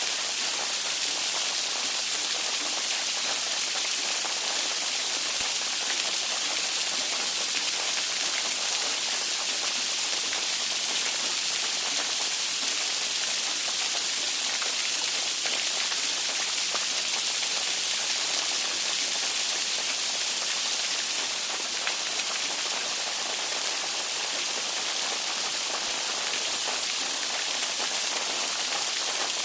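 Steady rain falling on a surface: a dense, even hiss with most of its weight high up and hardly any low rumble.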